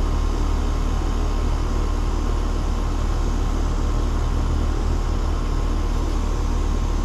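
Residential heat pump's outdoor unit running in heating mode: the compressor and fan give a steady low hum with a few faint steady tones above it.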